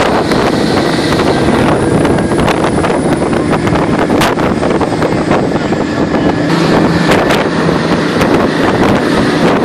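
Wind buffeting the microphone over the steady running of an open-bed military cargo truck driving at speed, with scattered knocks and rattles throughout.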